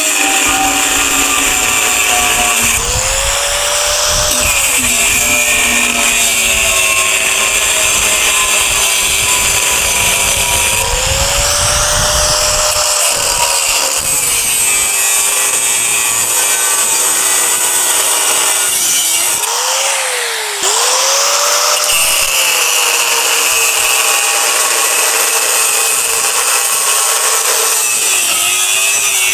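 Electric angle grinder with a cutting disc cutting through the steel shell of a hermetic refrigerator compressor, steady and loud. Its motor whine rises and falls in pitch several times as it cuts, with a brief sharp dip about twenty seconds in.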